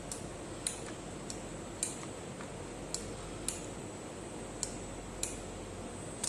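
Air circuit breaker's closing spring being charged: a series of light, sharp clicks, roughly one every half second to a second, from the charging mechanism's ratchet.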